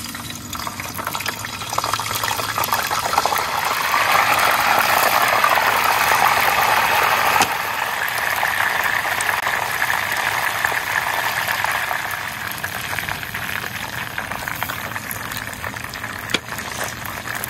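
A steady rush of water that starts abruptly, swells over the first few seconds, then holds and slowly eases before cutting off, with a single short click near the end.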